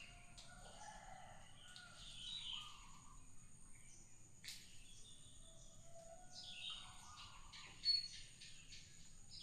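Faint outdoor bird calls: scattered short chirps, with one brief sharp high call about eight seconds in.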